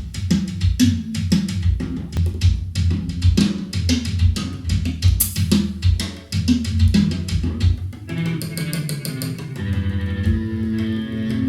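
Recorded pop music with bass guitar, guitar and a steady drum beat, played from a vinyl record through a hi-fi system. About eight seconds in the drums drop out, leaving held chords.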